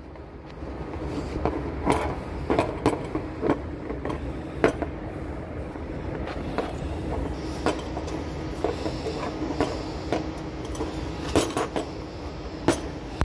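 Scattered light clicks and clanks of an ignition coil and metal hand tools being handled on a car's plastic engine-bay cowl, over a steady low rumble.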